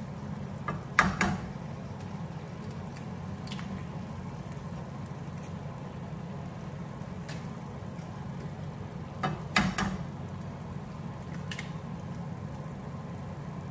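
Steady low mechanical hum with light clicks and knocks of kitchenware over it, including two sharper double knocks, one about a second in and one near the ten-second mark.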